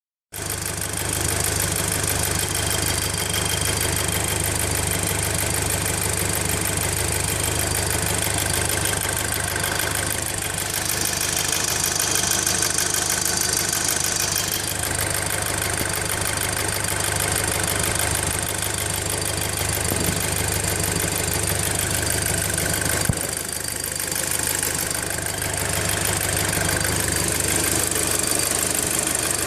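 VW Golf GTI Mk5's 2.0 TFSI petrol engine idling steadily, carrying a strange noise that the owner cannot place and that persists after a new PCV valve and cam follower were fitted.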